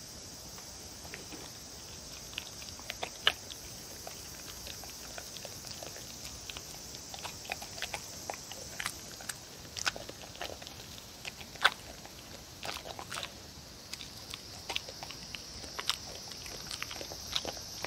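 A dog eating soft cubes of tofu and potato off a wooden board: scattered wet mouth smacks, licks and small chewing clicks, with a sharper click about three seconds in and another near the middle.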